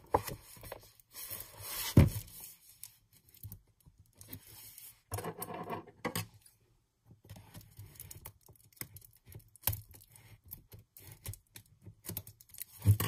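A pad of patterned paper being handled and leafed through: sheets rustling and scraping in irregular bursts, with a sharp knock about two seconds in.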